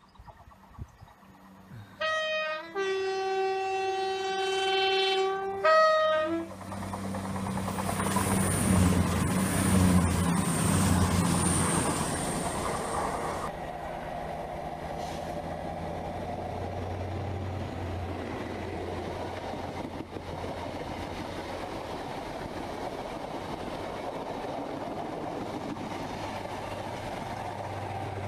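CrossCountry Class 220 Voyager diesel multiple unit sounding its two-tone horn as a greeting ('tones'): a short high note, a long low note of about three seconds, then the high note again. The unit then passes with a high whine. After that a First Great Western HST passes close by with a steady rumble.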